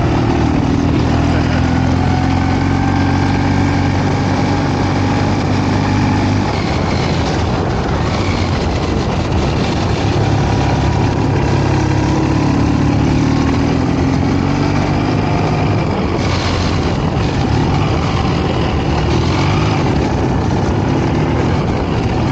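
Ural sidecar motorcycle's flat-twin engine running under way, its note falling near the start and rising again midway as the speed changes, over a steady rushing noise of wind and road.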